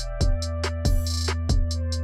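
Electronic, hip-hop-style music with a drum-machine beat: a deep kick drum about every half second that drops in pitch, quick hi-hat ticks, and held bass and synth tones underneath.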